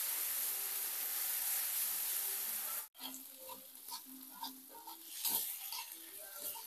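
Chopped chili and shallot spice paste sizzling in hot oil in a wok while it is stirred with a metal spatula. The sizzle cuts off abruptly about three seconds in, leaving a much quieter background with scattered faint clicks.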